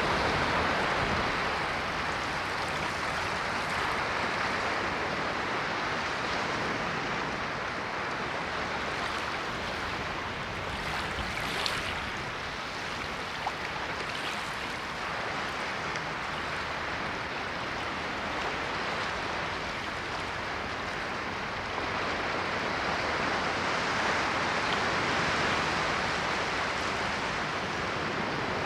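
Ocean waves washing in and out, a steady rushing that swells and eases slowly, with a faint crackle of surf about halfway through.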